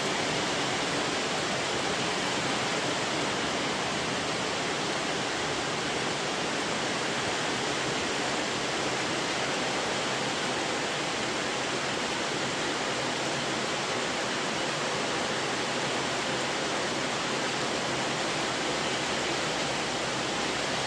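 Heavy rain pouring down: a steady, even hiss that holds without let-up.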